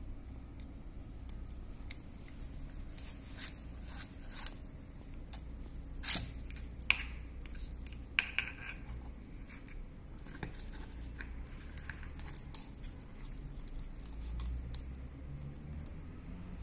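Hard plastic clicks and rattles of a spider-wrap security tag being handled and fitted with its wire cable, irregular sharp clicks with the loudest about six seconds in.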